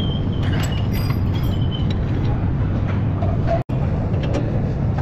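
Steady low rumbling workshop noise, with a few light metallic clinks in the first two seconds; the sound cuts out for an instant a little past halfway.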